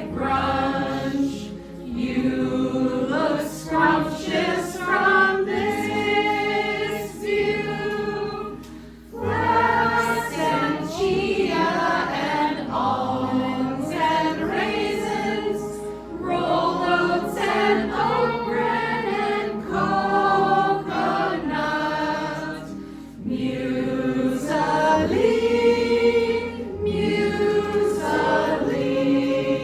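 A group of voices singing a slow song together in long phrases, with short breaks between lines.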